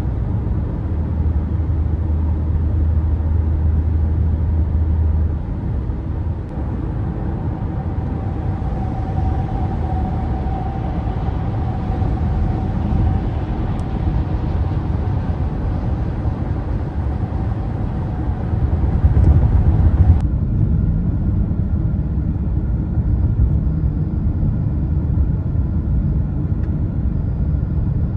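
Steady low rumble of road and engine noise heard inside a moving car's cabin; the sound changes abruptly about twenty seconds in.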